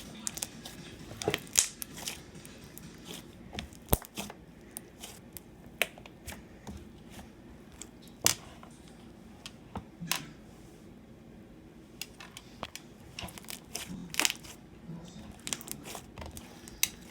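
Slime being squished and worked, giving irregular sharp pops and clicks. The loudest come about 8, 10 and 14 seconds in.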